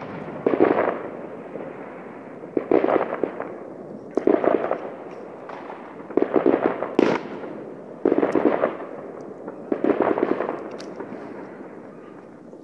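Aerial fireworks bursting: about six loud clusters of crackling bangs, roughly one every one and a half to two seconds, each followed by a rolling rumble of echo that dies away near the end.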